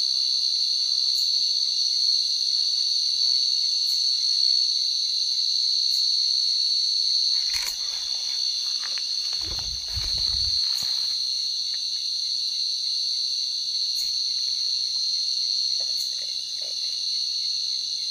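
A chorus of night insects, one steady shrill drone. A few soft rustles and low thumps come around the middle.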